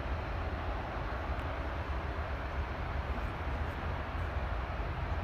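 Steady rumble and hiss of distant aircraft engine noise, with low wind buffeting on the microphone.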